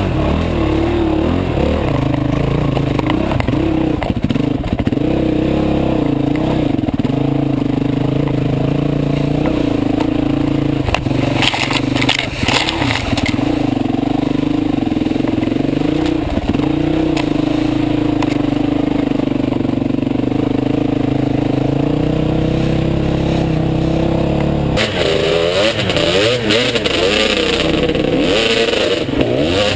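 Dirt bike engine running under load on a muddy climb, its pitch rising and falling with the throttle. Close to the end the note wobbles quickly up and down with short throttle blips as the bike slows behind another rider, with some clatter.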